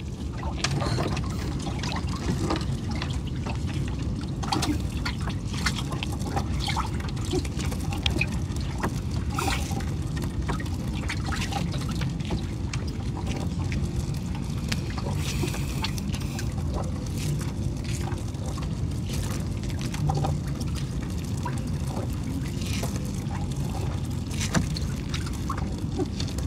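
Water dripping, trickling and splashing as a gill net is hauled wet out of the river, with many small scattered knocks over a steady low rumble.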